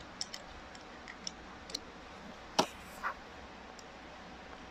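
Scattered light clicks and taps from handling the plug of an épée body cord as it is fitted for a test, with one sharper click a little past halfway.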